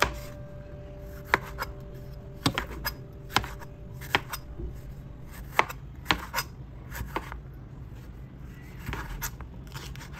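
Chef's knife slicing a yellow bell pepper into strips on a plastic cutting board: irregular sharp taps of the blade striking the board, about one or two a second.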